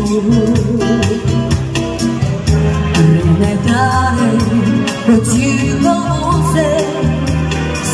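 A woman singing through a microphone over amplified backing music with a bass line and a steady percussion beat; her voice comes to the fore about halfway through.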